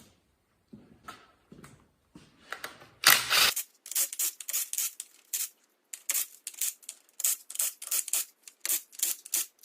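Ratchet wrench clicking in quick repeated strokes, about three a second, as the bolts on a Turbo 350 transmission's valve body are cracked loose and backed out, with a loud sharp snap about three seconds in.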